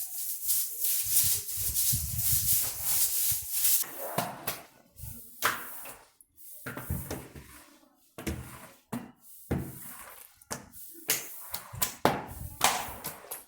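Household handling sounds: a few seconds of steady hissing noise, then a string of light knocks and thuds with short bursts of hiss between quiet gaps.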